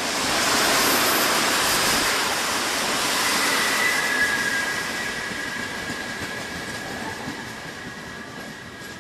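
A train running past: a loud rushing rail noise swells in the first second or two and then slowly fades. A steady high-pitched squeal joins from about four seconds in.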